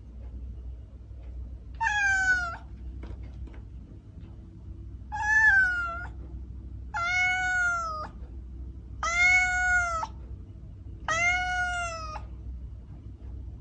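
A kitten meowing five times, about once every two seconds, each meow a high, drawn-out call lasting about a second that drops slightly in pitch at the end.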